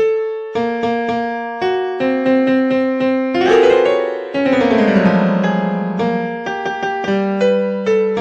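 Piano ringtone melody: a tune of struck notes and chords with a falling run of notes about halfway through.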